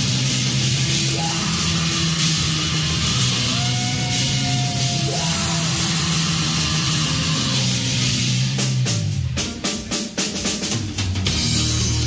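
Rock power trio playing loud live: electric guitar, bass guitar and drum kit, with shouted vocals. About eight and a half seconds in, the band breaks into a couple of seconds of sharp separate hits, then the full band comes back in.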